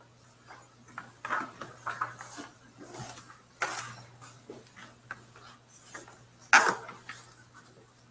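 Scattered handling noises: irregular knocks, clicks and rustles over a steady low hum, with the loudest knock about six and a half seconds in.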